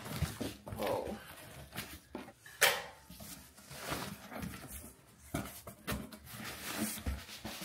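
Cardboard box being opened and rummaged through by hand: flaps rustling and scraping, with a few sharp knocks, the loudest about two and a half seconds in.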